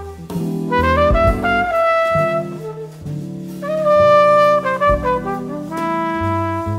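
Flugelhorn playing a melodic line of held notes over bass and band accompaniment, in a jazz arrangement of a traditional Swiss folk song.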